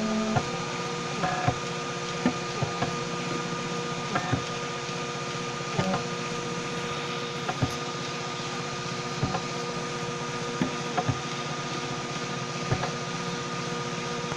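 Homemade 3D printer running a print: a steady motor and fan hum with a few held tones, broken by short irregular clicks every second or so.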